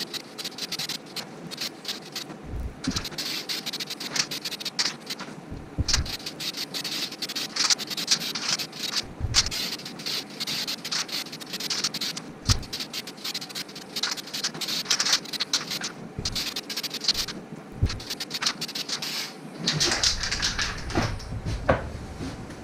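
Aerosol spray paint can hissing in repeated long bursts with short breaks between them, with a few soft low knocks.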